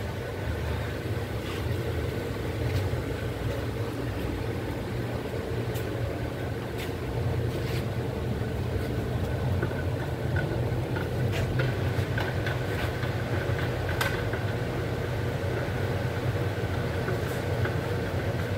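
A motor running steadily with a low hum, with a few faint clicks and taps scattered through it.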